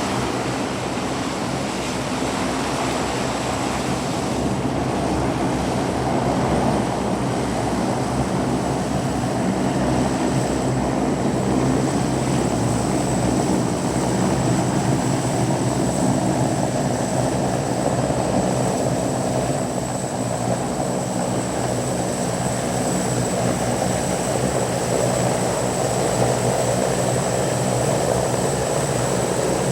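De Havilland Canada Dash turboprop aircraft running steadily, a continuous propeller drone with a thin high whine held over it.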